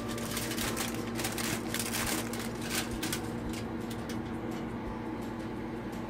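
Aluminium foil crinkling as it is handled, a dense crackle for about the first three seconds that then thins out, over a steady low hum.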